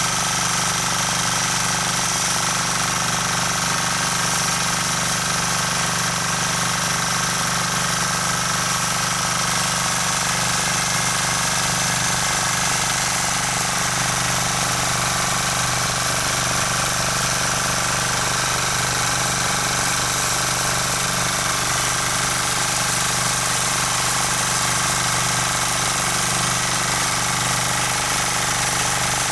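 Rotakt walk-behind rotary tiller's engine running steadily under load as its tines churn the soil.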